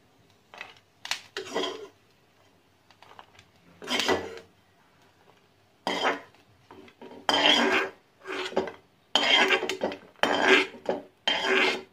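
Metal spatula scraping roasted coconut, garlic and ginger out of a metal kadhai onto a plate: a series of short scrapes and clinks on the pan, few at first and coming close together in the second half.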